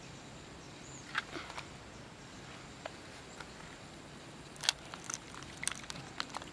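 Scattered light clicks and taps of small hard objects being handled, about eight in all and loudest a little past the middle, over a faint steady hum.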